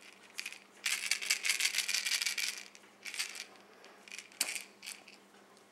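Rapid rattling for about two seconds, then a few shorter rattles and one sharp click.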